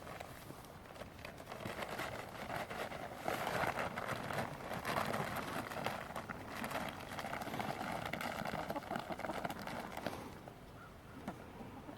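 Chickens scrambling and pecking at scattered treats: a busy patter of quick clicks and scratches, loudest in the middle and easing off near the end.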